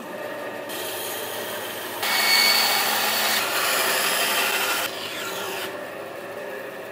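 Bandsaw running and cutting through a thick round of willow log, a steady machine hum under the noise of the blade in the wood. The cut is loudest from about two to five seconds in.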